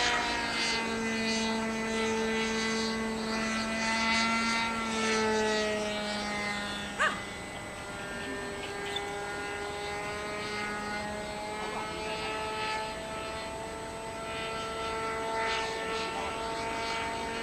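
Radio-controlled model airplane's motor and propeller droning in flight, the pitch drifting slowly down and back up as it flies around. A single sharp click about seven seconds in.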